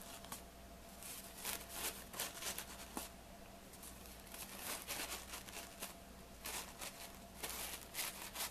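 Paper beverage napkins rustling and crinkling in short, irregular bursts as accordion-folded layers are pulled out and fanned apart by hand.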